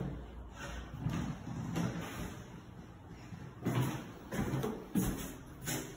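Irregular soft thumps of footsteps on a bare floor, with a few sharper knocks from a closet door being handled.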